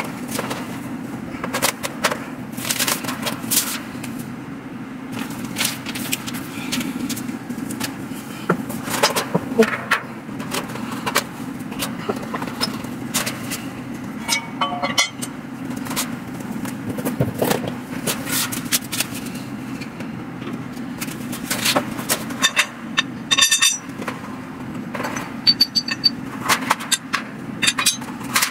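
Flat-pack furniture parts being unpacked and handled: white metal mesh panels and metal tubes knocking and clattering, and cardboard packaging rustling and scraping, in many short irregular knocks with bursts of rattling. A steady low hum runs underneath.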